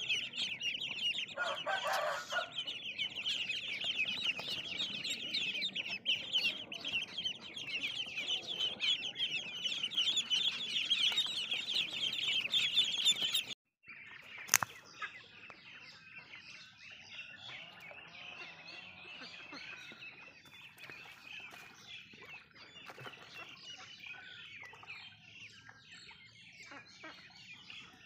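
A brood of ducklings peeping loudly and constantly, a dense chorus of short high calls, with one lower call about two seconds in. About halfway through the sound cuts off, a single sharp click follows, and then a quieter chorus of young ducks peeping goes on.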